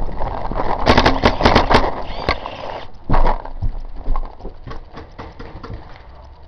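Hurried running footsteps on dry ground, with gear clattering and sharp knocks, for the first couple of seconds. A heavy thump follows about three seconds in. After it come faint, quick pops of paintball markers.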